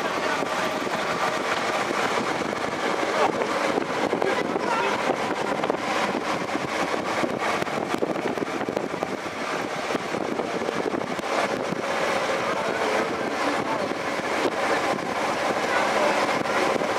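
Steady riding noise on a paved road in a large group of cyclists: wind and tyre rumble, with many small rattles and clicks and faint scattered voices.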